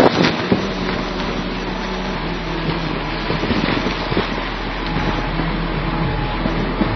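Wind noise over a moving phone microphone while riding along a dirt road, an even rushing with a steady low hum underneath.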